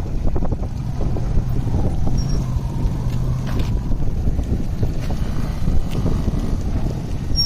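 Steady low engine rumble, with a faint hum rising out of it for a second or two partway through.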